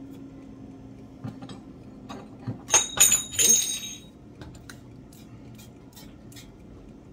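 Trigger spray bottle squirting degreaser onto a gas stovetop: a quick run of sharp, hissy squirts about three seconds in, then fainter squirts and ticks toward the end.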